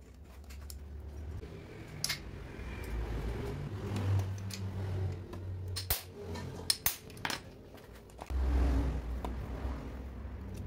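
Hand tools and small steel parts clicking and clinking against the aluminium crankcase of a Kawasaki Ninja RR two-stroke engine as it is dismantled: a scatter of sharp metal clicks, several close together past the middle, over a low steady hum.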